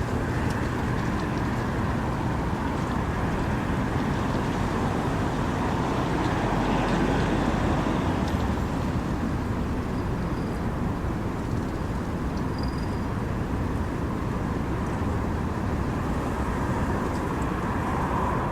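Steady wind with a heavy low rumble and a broad rushing hiss, holding an even level throughout.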